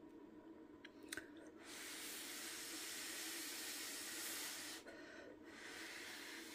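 A steady hiss lasting about three seconds, breaking off briefly and then coming back for over a second.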